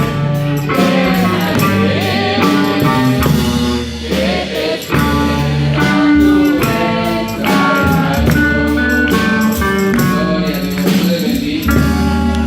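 Christian music from a church men's group: male voices singing over instrumental backing with a bass line and a steady beat.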